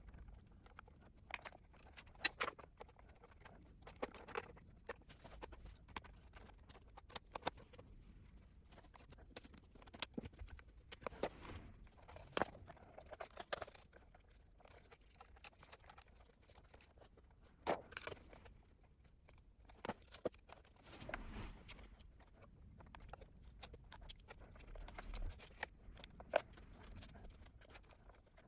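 Faint handling sounds of hands connecting wiring to motorcycle battery terminals and routing cables: scattered small clicks and ticks of metal and plastic at irregular times, with soft rustling of cables in between.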